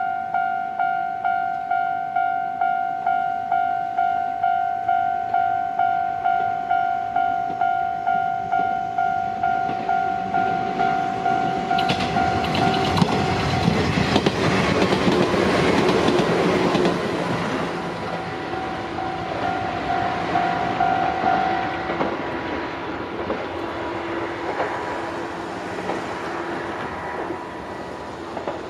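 Japanese level-crossing warning bell ringing in even, repeated dings as an Izu-Hakone Railway Sunzu Line electric train passes through the crossing. The train's wheel and rail noise builds about twelve seconds in and is loudest for a few seconds. The bell stops a few seconds after the train has gone by, and the train noise fades away.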